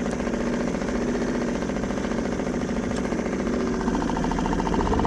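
Boat engine running steadily while the boat trolls slowly, an even, fast engine pulse, a little louder near the end.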